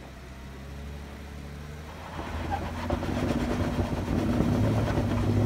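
Jeep Wrangler's engine idling, then about two seconds in the throttle comes on and the engine runs louder and steady under load as the Jeep pulls up a rock ledge.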